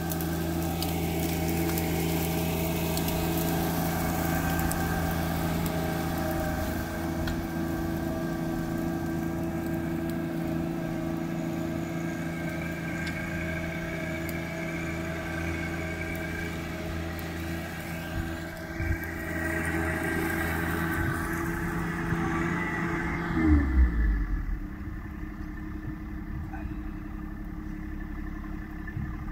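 John Deere 1025R sub-compact tractor's three-cylinder diesel engine running steadily at working throttle. Most of the way through, its pitch drops with a couple of heavy thumps, then a quieter, lower engine hum continues.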